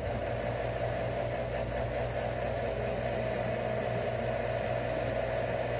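Steady low machine hum with no change, a constant drone in the room.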